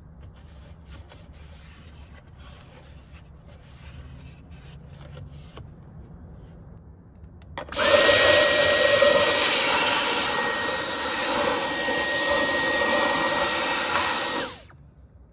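A power tool's motor runs steadily for about seven seconds with a high whine, then is switched off and winds down. Before it come faint clicks and handling sounds.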